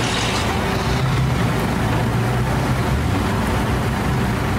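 Heavy military vehicle engines running with a steady low drone after the order to start up, with a short hissing rush right at the start.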